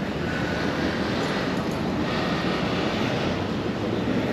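Steady city street roar of passing traffic, an even noise with no distinct events.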